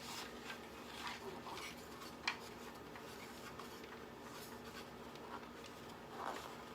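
Faint rubbing and small clicks of hands working a plastic part loose from a dismantled boombox, with one sharper click about two seconds in. A faint steady hum runs underneath.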